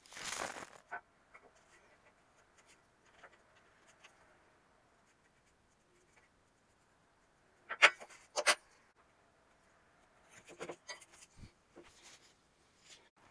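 Felt-tip marker drawing short lines on a textured piece of wall lining, with two quick, louder strokes about eight seconds in, then faint rubbing and handling of the piece.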